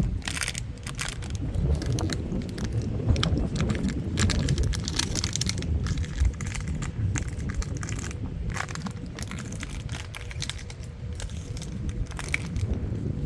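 Dog chewing a crinkly homemade sock toy: irregular crackling and crunching like a crackling fire, with a low rumble underneath.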